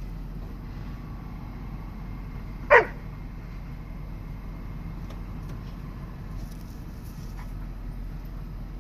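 A dog gives a single sharp bark a little under three seconds in, over the steady low hum of a vehicle.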